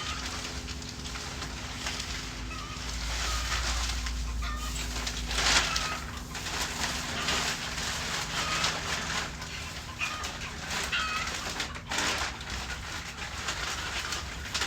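Birds chirping with short, repeated calls, and two brief, louder noisy rustles about five and a half and twelve seconds in.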